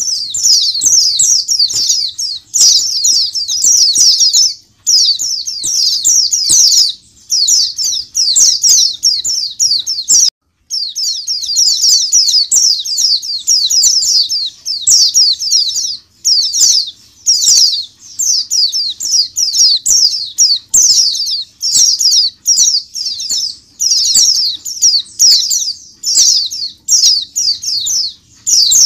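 A crowded cage of dozens of white-eyes (pleci) chirping all at once: a loud, dense chorus of rapid, high, falling twitters that overlap without letup, with a brief break about ten seconds in. This massed flock chorus (ombyokan) is used as a lure to set other pleci singing.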